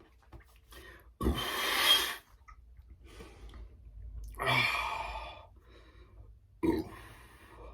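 A man breathing out heavily in three loud gasping sighs, about a second in, near the middle and near the end, catching his breath after chugging two cans of carbonated water.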